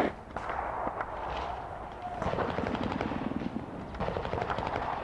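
Airsoft guns firing: a sharp shot right at the start, then two bursts of rapid automatic fire, a fast string of clacks, about two seconds in and again about four seconds in.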